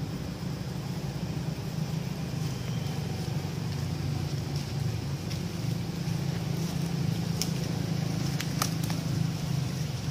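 Steady low motor hum, with a few short clicks in the second half.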